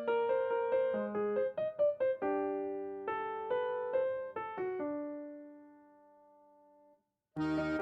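Background music: an electric-piano melody of quick notes that slows into held chords and fades out about six seconds in, then a brighter tinkling music cue starts near the end.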